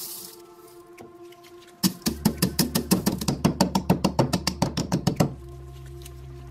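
Black peppercorns poured into a wooden mortar with a brief rattle, then pounded hard with a wooden pestle: about eight quick knocks a second for roughly three seconds, stopping abruptly. Background music plays underneath.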